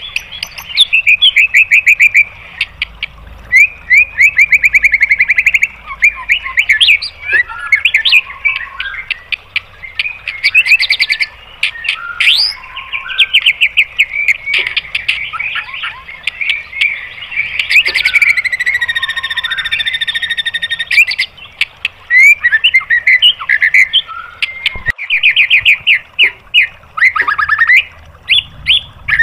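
White-rumped shama (murai batu) singing a loud, varied song: fast runs of rapid repeated notes ('tembakan') broken by chirps and short phrases, with one long held whistle about two-thirds of the way through.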